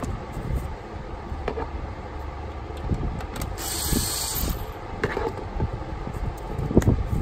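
A cordless power tool with a socket runs for about a second, spinning loose the 10 mm clamp bolt on the intake tube. Around it are a few sharp clicks of handling parts over a low wind rumble on the microphone.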